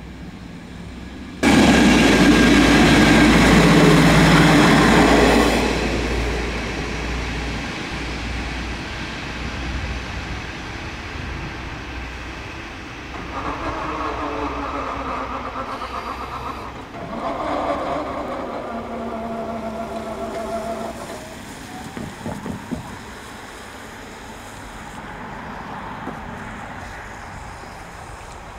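Czech Railways diesel passenger train running past with engine rumble and wheel noise, loudest for about four seconds starting suddenly near the start, then fading into quieter outdoor sound.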